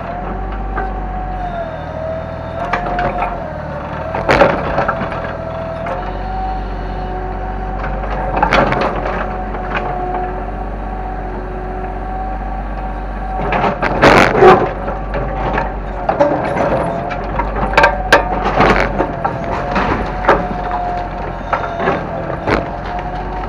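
Kobelco hydraulic excavator running steadily with a wavering hydraulic whine, broken by repeated crashes and cracks as it breaks up wood and debris. The loudest crash comes about halfway through.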